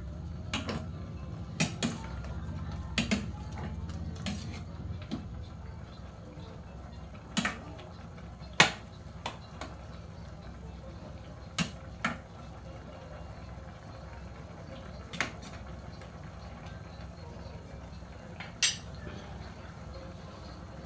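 Metal cooking utensil knocking and scraping against a stainless steel pot as pork pieces are stirred, with about a dozen irregular clanks, more frequent in the first half and loudest about halfway through, over a steady low hum.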